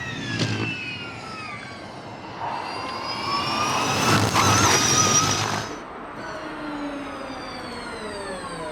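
Formula E electric race cars' motor and gearbox whine as they pass at speed. One whine falls away at the start, then a second rises in pitch as its car approaches, is loudest about four to five seconds in, and drops in pitch as it pulls away.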